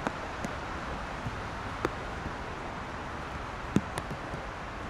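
Steady wash of wet highway traffic and rain, broken by irregular sharp taps of raindrops striking close to the recorder, the loudest of them a little before the end.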